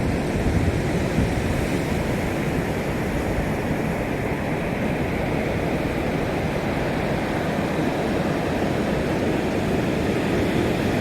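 Steady, deep rushing noise with no distinct tone or rhythm.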